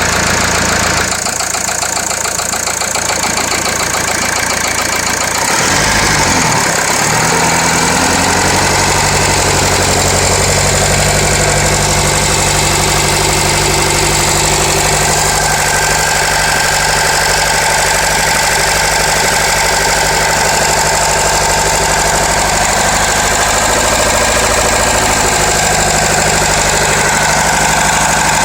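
Renault Laguna 2.0 dCi (M9R) four-cylinder diesel engine running with a metallic clacking, which the owner puts down to the hydraulic lifters. The engine note shifts downward about six seconds in, then settles into a steady idle.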